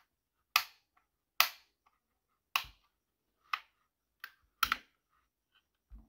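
Single key presses on a Philco PKB92 mechanical keyboard with Outemu brown switches: sharp clicks roughly one a second, coming closer together near the end.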